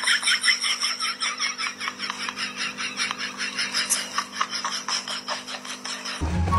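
A puppy licking and nibbling at the clear plastic lid of a takeaway food container: a rapid, even train of small wet clicks and smacks, about five a second, over a steady low hum.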